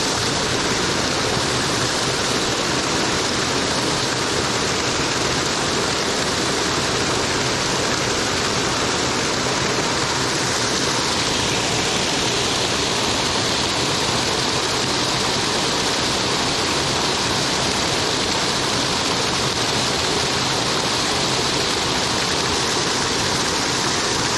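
Creek water pouring over a small concrete spillway, a steady loud rush of falling, splashing water.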